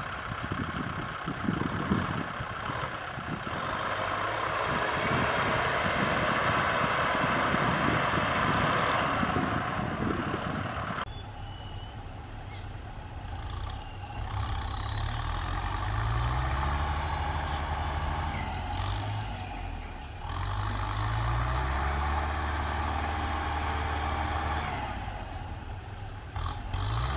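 Kubota M6040SU tractors' four-cylinder diesel engines working under load. For the first part a single tractor runs steadily with a loud rushing, grinding noise over the engine as it drives through wet grass and mud. After about eleven seconds the engine note rises and falls again and again as tractors push earth with their front blades, with birds chirping.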